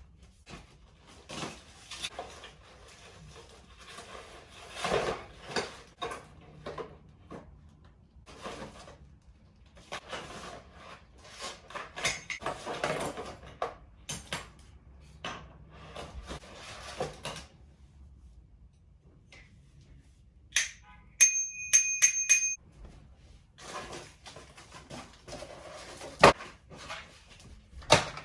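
Packaging and parts being handled: irregular rustling, scraping and light knocks. About 20 seconds in, a high ringing tone sounds for about two seconds with rapid clicks over it, and a single sharp click comes near the end.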